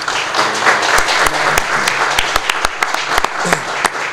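Audience applauding: many hands clapping in a dense patter, with sharper single claps standing out.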